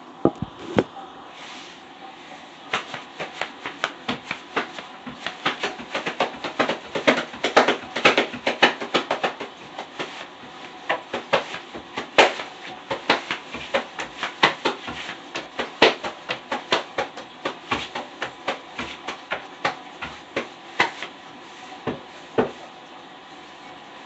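Rapid, irregular series of sharp clicks or taps, several a second, with two loud ones right at the start and a last pair a couple of seconds before the end.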